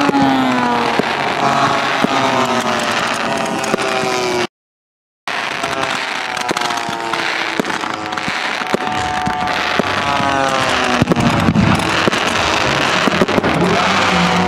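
Engines of radio-controlled WWII scale model warbirds flying past, their pitch gliding down as each one passes, over sharp pyrotechnic pops. The sound cuts out briefly about a third of the way in. A deep rumble swells about three-quarters through as ground pyrotechnics go off.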